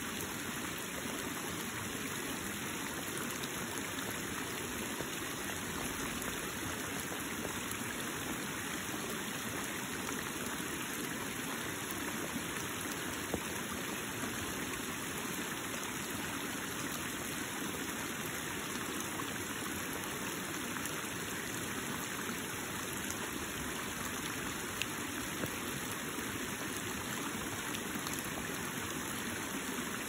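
Flooded woodland creek running high, its water rushing and splashing steadily over a series of small rocky drops.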